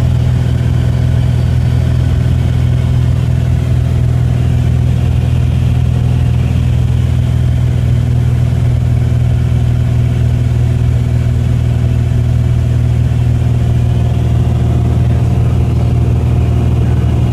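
Light aircraft's engine and propeller heard from inside the cabin: a loud, steady drone with a deep hum that holds level throughout.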